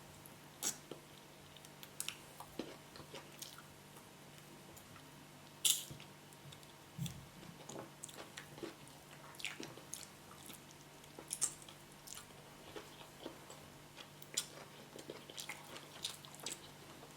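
Close-up chewing and mouth sounds of a person eating yam cooked with spinach: irregular soft smacks and clicks, with one louder smack a little under six seconds in.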